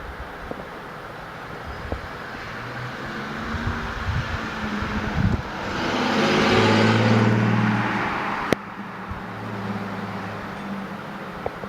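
A motor vehicle going by: a low engine hum and road noise swell to a loud peak past the middle, then drop off suddenly at a sharp click, leaving a quieter hum.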